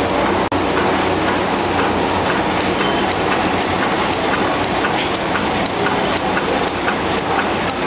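Reel-to-pack continuous-stationery printing press running: a steady mechanical clatter with light clicks repeating through it.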